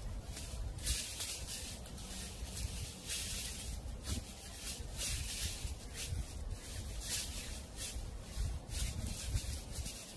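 Dry fallen leaves rustling and crackling in irregular surges about every second, over a low rumble of wind.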